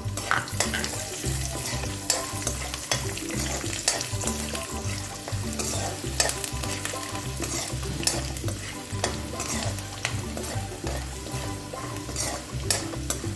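Sliced garlic and peanuts sizzling in a little hot oil in a kadhai, with a spoon stirring and scraping against the pan in frequent sharp clicks. The garlic is being fried until crisp.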